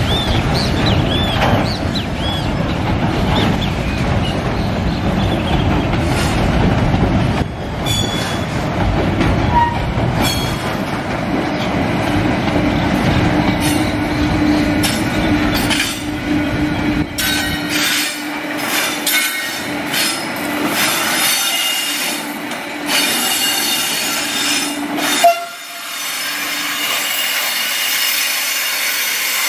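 Container train's loaded freight wagons rolling slowly past on steel wheels, with high wheel squeal and clicks over the rail joints. The low rumble drops away about two-thirds through, leaving the squealing and a steady hum.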